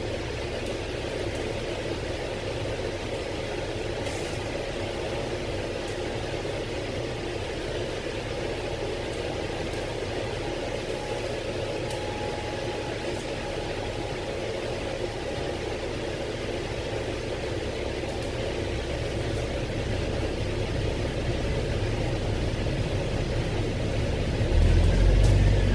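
Double-decker bus engine and cabin rumble heard from inside the bus, running steadily. Near the end the low engine rumble swells much louder, with a faint rising whine.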